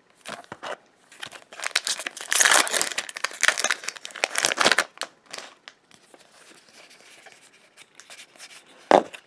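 Foil Magic: The Gathering booster pack wrapper being torn open and crinkled, loudest in the first half. It is followed by quieter rustling as the cards are slid out and handled, with a single sharp tap near the end.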